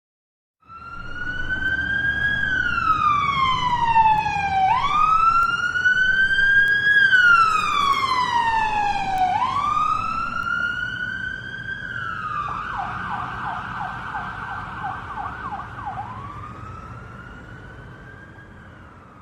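Electronic emergency siren wailing, its pitch sliding slowly up and down about every four to five seconds. About two-thirds of the way through it switches to a quick yelp for a few seconds, then returns to one last wail and fades out.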